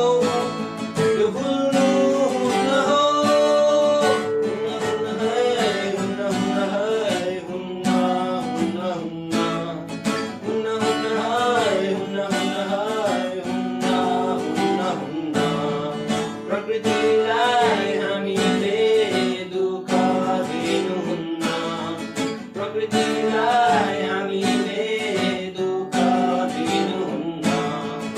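Music: strummed acoustic guitar playing a steady accompaniment, with a melody line above it.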